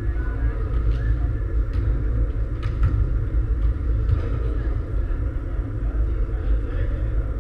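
Large indoor sports hall ambience: a steady low rumble under faint, indistinct voices, with a few sharp knocks in the first three seconds and one more near the end.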